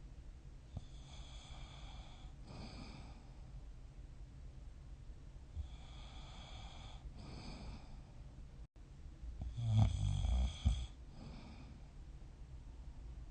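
A person snoring in sleep: several slow breathing cycles a couple of seconds apart, then a louder, low snore about ten seconds in.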